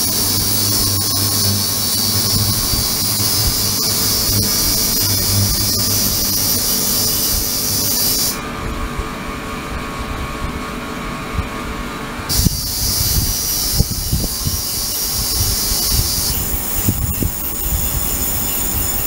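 Ultrasonic cleaning bath running: a steady high hiss from cavitation in the cleaning liquid over a low electrical hum. The hiss drops out for about four seconds near the middle and then comes back, with scattered ticks in the later part.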